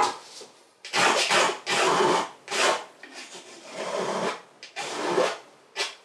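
A painting tool scraping and rubbing on the oil-painted canvas: about six rough strokes, each well under a second, with a softer one in the middle.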